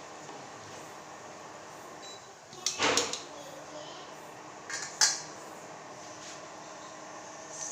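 Two brief clatters of kitchenware being handled or set down, about three and five seconds in, over a steady low background hum.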